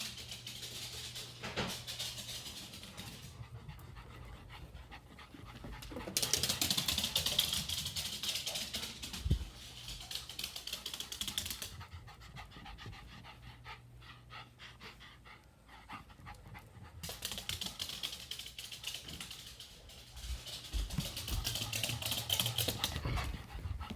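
An elderly dog panting rapidly after a bath, in spells of stronger, hissy breathing broken by softer, slower panting.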